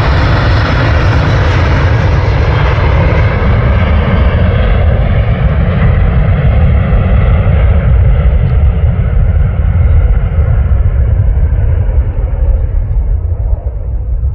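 Jet airliner passing and moving away: its engine noise thins steadily as the higher hiss fades, leaving a deep rumble.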